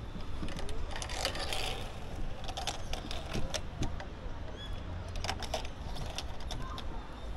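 Metal carabiners on a climbing lanyard clinking and clicking against a steel safety cable: a run of sharp clicks in several clusters over a low steady rumble.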